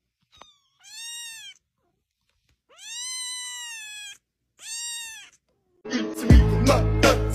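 A young kitten meowing three times in high, thin calls, each rising and falling in pitch, the middle one the longest. Near the end, loud music with a deep bass cuts in.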